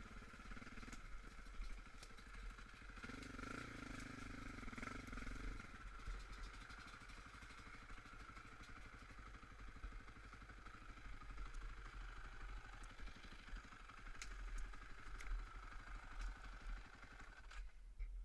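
Off-road engine running at low revs, revved briefly about three seconds in, then shut off near the end.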